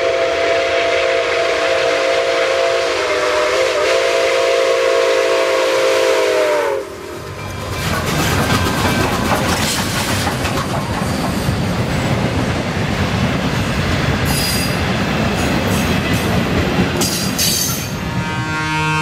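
Nickel Plate Road 765, a 2-8-4 Berkshire steam locomotive, holding one long blast on its chime steam whistle, which sags in pitch and cuts off about seven seconds in. Then the locomotive and tender rumble past close by, followed by passenger cars whose wheels click over the rail joints near the end.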